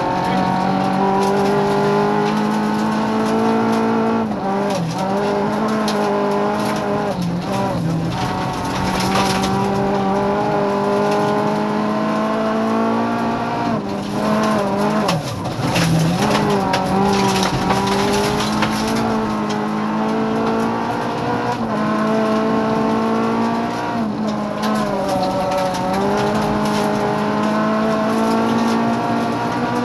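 Rally car's engine running hard at high revs, heard from inside the cabin, its note dipping briefly several times at gear changes or lifts. Stretches of gravel clatter under the car come in around the middle.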